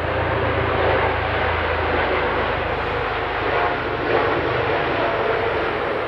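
Helicopter flying over: a steady, loud engine and rotor drone, its deep rumble easing off after about two seconds as it passes.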